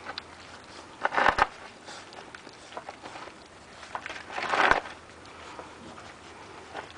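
Young Šarplaninac puppies feeding from a metal bowl: small clicking, lapping and chewing noises throughout, with two louder scuffing noises of about half a second each, about a second in and about four and a half seconds in.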